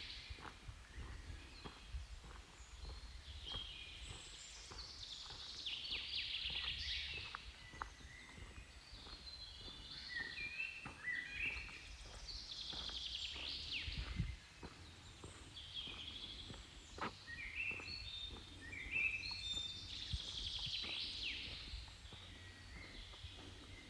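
Songbirds singing, with repeated trilled phrases and quick falling notes, over a steady low rumble.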